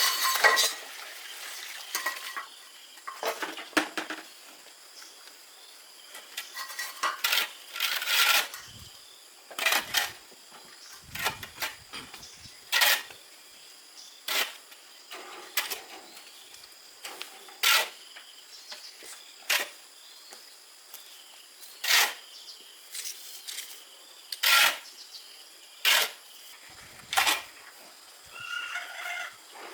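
Sharp clinks and taps of hard objects knocking together, one every second or two at an uneven pace.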